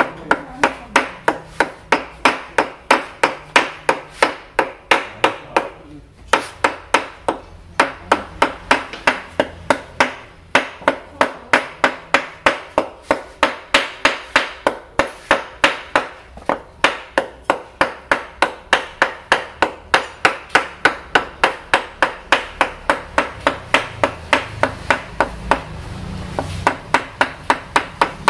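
Mallet knocking on a cylinder liner in an Isuzu Panther diesel engine block, tapping the liner down into its bore. Quick sharp knocks, about three a second, with a few short pauses.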